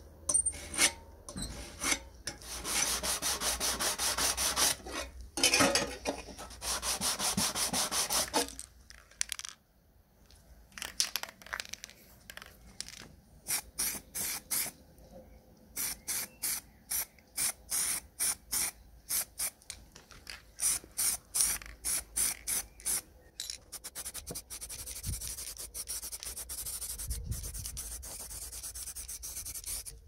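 A hand file rasps along the edge of the coffee grinder's tin sheet-metal panel clamped in a vise, in long strokes for the first several seconds, then in a run of short quick strokes. Near the end comes the steady hiss of an aerosol spray can coating the tin parts grey.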